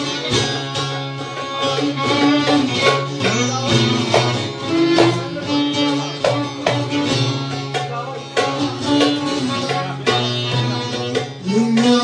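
Instrumental passage of Turkish folk music: a bağlama (long-necked saz) plucking a lively melody, with sharp percussion strikes alongside.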